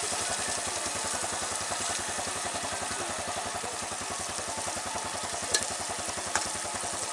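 Rendang simmering and sizzling in a pot on a portable gas stove, a steady hiss over an even, rapid low throb. Two light knocks of cookware come near the end.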